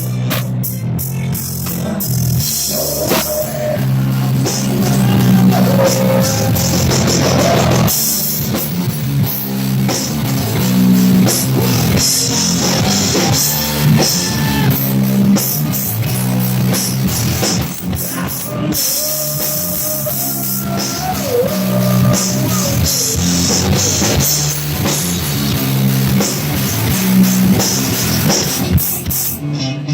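A rock band playing: drum kit with cymbals, bass and guitar, with a few held melodic notes.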